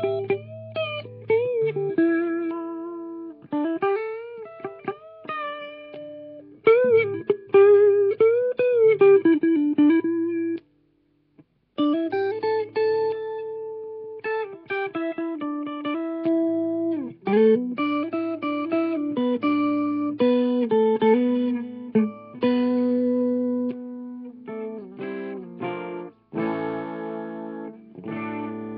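Double-neck electric guitar played lead: single notes with repeated string bends and vibrato, stopping for about a second around ten seconds in, then carrying on with held notes and quicker runs.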